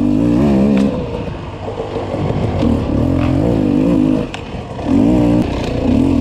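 Off-road dirt bike engine running hard through a hare scramble, its pitch rising and falling as the throttle is worked and eased off a few times. A few sharp knocks clatter in over the engine.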